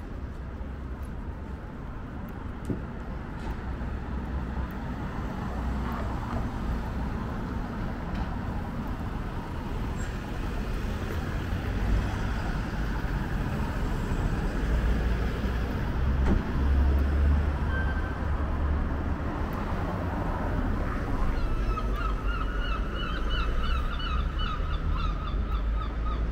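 Outdoor walking ambience with a steady low rumble. Late on, a bird calls in a rapid run of short, repeated, pitched notes, several a second, lasting about five seconds.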